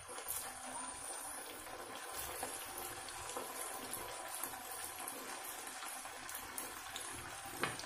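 Sabudana vadas deep-frying in hot oil: a steady sizzle with fine crackling as more balls are slipped into the oil. There is a brief light tap near the end.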